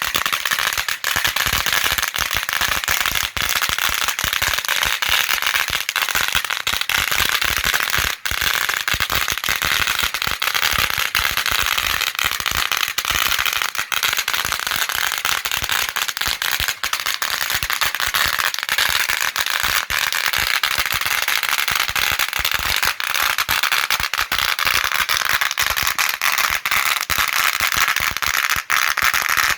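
A long string of firecrackers, 8,000 of them, going off in a dense, unbroken stream of rapid pops and crackles at a steady loudness.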